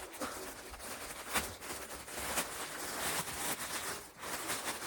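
Plastic packaging crinkling and rustling as a package is handled and opened, with irregular crackles.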